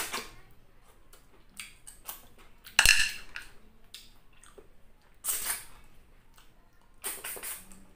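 Wet slurping as cooked snails in coconut-milk sauce are sucked out of their shells, in several short bursts, the loudest and sharpest about three seconds in.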